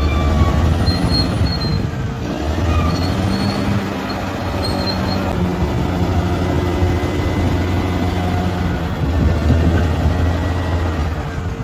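Bulldozer's diesel engine running steadily under work, with short high-pitched squeaks from the steel tracks coming again and again.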